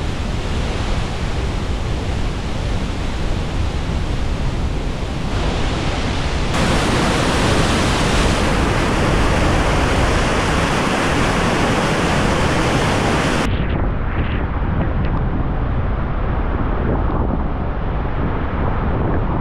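Floodwater rushing down the Shimen Dam spillway during a flood release: a loud, steady rush of water with no let-up. Its tone changes abruptly twice.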